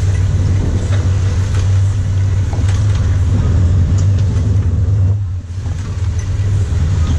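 A sportfishing boat's engines running with a steady low hum, water rushing and splashing around the stern, with a short dip in level about five seconds in.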